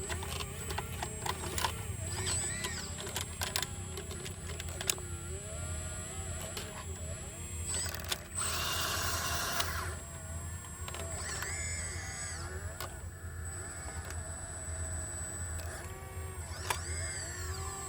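Sumitomo SH120A3 excavator working: the diesel engine runs steadily under wavering hydraulic whines, with scattered metallic clanks and knocks. A loud hissing burst comes about eight seconds in and lasts over a second.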